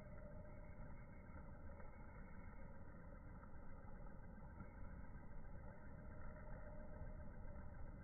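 Faint, steady, low background rumble with no distinct events and no bird calls.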